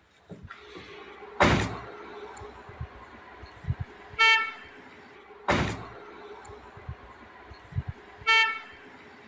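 Vehicle horn sounding two short toots about four seconds apart, a warning to a passing motorcyclist that a wild elephant is standing by the road. Each toot comes a few seconds after a brief loud burst of noise, over a faint steady hum.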